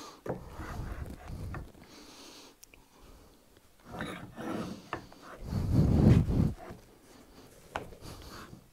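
A wooden strip being handled and turned over on a wooden workbench: scattered knocks and rubbing of wood on wood, with a louder, low rumble lasting about a second about six seconds in.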